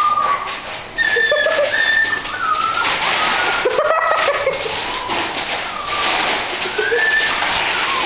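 Puppies giving many short, high-pitched whines and yips while scrambling over sheets of newspaper, which rustle steadily underfoot, louder from about a second in.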